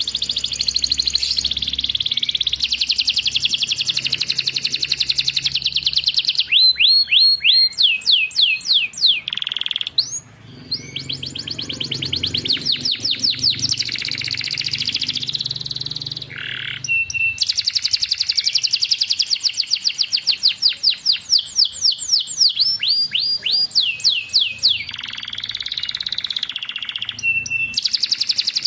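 Canary singing a long, fast song: rapid rolling trills alternating with series of quick sweeping notes, broken by a couple of brief pauses.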